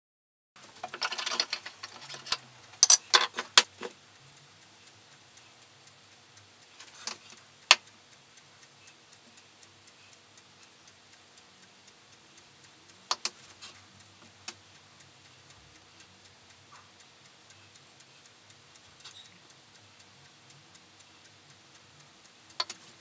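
Steady ticking of a wall clock in a small workshop, with a few sharp clicks and knocks, most of them in the first four seconds and a handful later, as a varnish brush and its work are handled.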